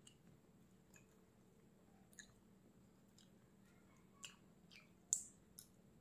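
Eating sounds close to the microphone: scattered soft mouth clicks and smacks about once a second, the loudest a sharp click about five seconds in.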